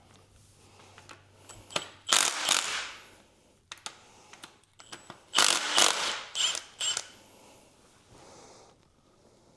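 Tool work on the bottom end of a Ford 302 V8 during teardown: two bursts of ratchet-like mechanical noise, the second longer, with scattered metal clicks.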